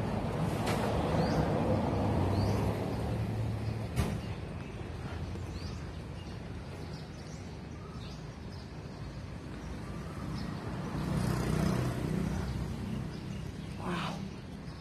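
Street traffic: one vehicle passes in the first few seconds and another about eleven seconds in, with short bird chirps in between and a sharp click about four seconds in.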